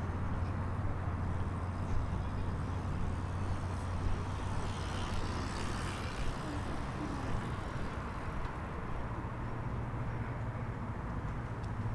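Street traffic: a vehicle engine's steady low hum, with another vehicle passing about halfway through.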